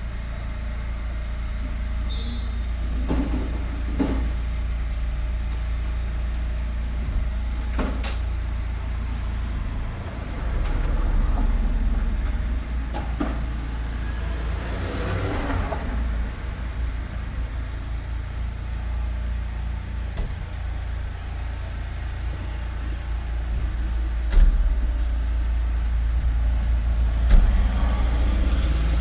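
Street traffic: a steady deep rumble of motor vehicles, with one vehicle passing louder about halfway through. Several sharp knocks or clicks are scattered through it, the loudest near the end.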